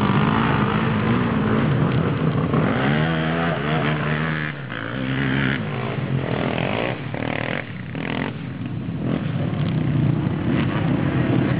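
Off-road motor vehicle engine running loudly, its pitch wavering up and down as it revs, with short drops in level about four and a half and seven and a half seconds in.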